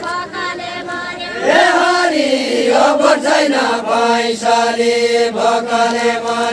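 A group of men singing a deuda verse unaccompanied and in unison, like a chant. The tune slides at first, then settles into long held notes from about the middle on.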